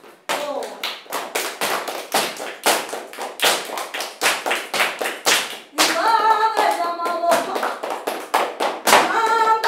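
Flamenco palmas: hand-clapping in a steady rhythm, about three claps a second, with a voice starting to sing over it about six seconds in.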